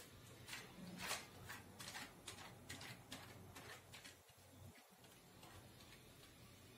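Faint crinkling of a plastic sheet as hands press and flatten a ball of dough on it over a wooden board: a run of light crackles, about three a second, thinning out after about four seconds.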